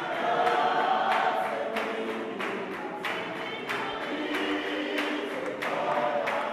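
A church choir of many voices singing, a capella in gospel style, over a steady beat of sharp strikes about three every two seconds.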